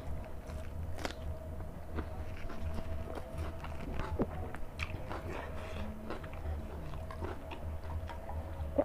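Chewing and mouth noises of a man eating chicken curry and rice by hand, with scattered short clicks, over a steady low hum.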